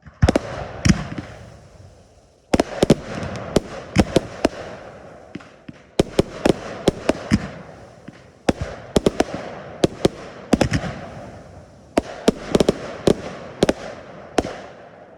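Fireworks going off in volleys: about every three seconds a salvo of sharp bangs and cracks breaks out, each fading away in a hiss, five volleys in all.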